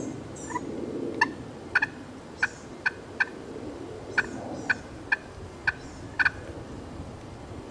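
About ten short, sharp turkey clucks, spaced roughly half a second apart, starting about a second in and ending near the end.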